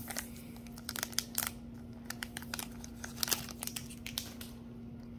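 Foil trading-card pack wrapper crinkling as a stack of cards is slid out and thumbed through, with quick crackles and clicks of card on card. The handling noise thins out near the end.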